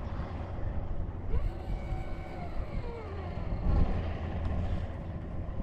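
Wind rumbling on the microphone over open water, with faint wavering tones sliding up and down through the middle.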